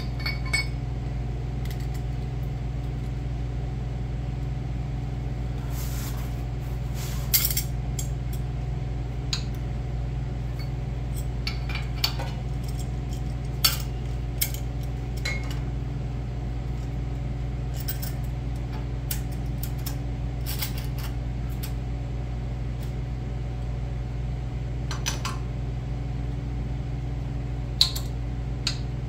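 Scattered metal clinks and clanks of a stainless V-band clamp being fitted by hand onto a turbocharger's compressor outlet flange, over a steady low hum.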